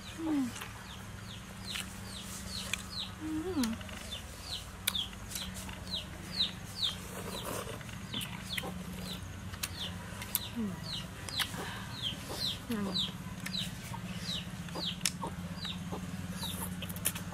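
Chickens: a hen clucking a few times, low and falling, over a steady stream of short, high, falling chick peeps about two a second. Scattered clicks and noodle slurps join in.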